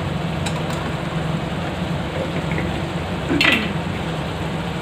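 Chicken and spices frying in a karahi with a steady sizzle, and a metal spoon clinks once against the pan about three and a half seconds in.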